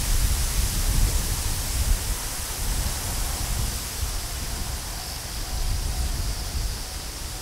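Wind buffeting the microphone in gusts, easing off toward the end, over a steady high hiss.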